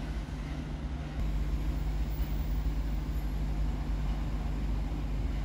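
A Pt47 steam locomotive standing at a station platform, giving a steady low rumble and hum that grows louder about a second in.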